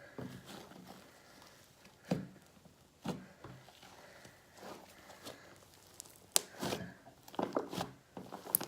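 Fluffy slime being mixed with metallic paint: irregular sticky clicks, pops and soft squelches.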